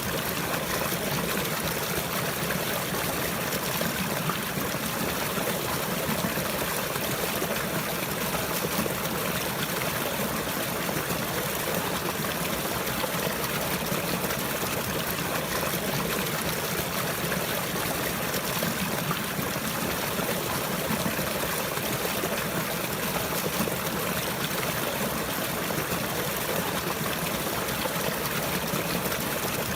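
Steady trickling, flowing water, like a small stream, going on evenly without any change.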